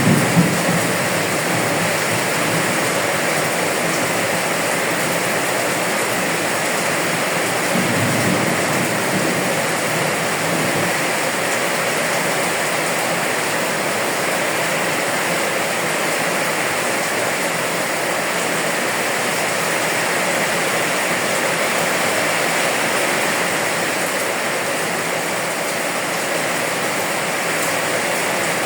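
Steady rain falling, an even hiss, with a brief low rumble about eight seconds in.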